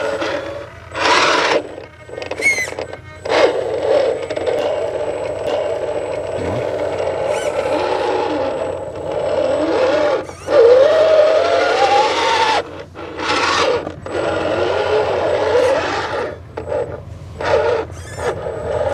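Axial SCX10 II RC crawler's electric motor and geared drivetrain whining, the pitch rising and falling with the throttle, with short surges of tyres scrabbling and scraping in loose sand.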